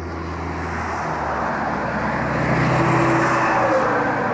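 Highway tractor-trailer traffic: truck engine and tyre noise building up, loudest about three seconds in, with an engine note sliding down in pitch near the end as a truck goes by.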